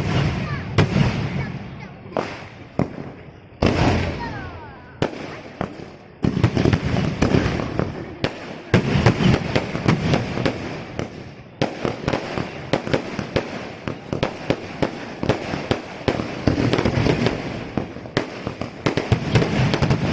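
Fireworks display: aerial shells bursting overhead in a string of sharp bangs, turning into a dense, almost continuous run of bangs and crackling from about six seconds in.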